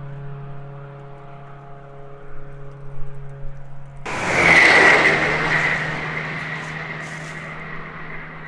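Cars driving on the Nürburgring Nordschleife. For about four seconds a single engine holds a steady note. Then a much louder car arrives suddenly and passes with a high whine over its engine noise, loudest about a second later and then fading.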